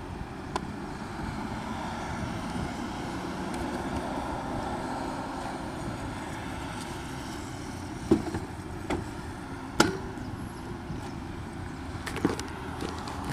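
Steady background traffic rumble, with a few sharp clicks and knocks about eight to ten seconds in and again near the end.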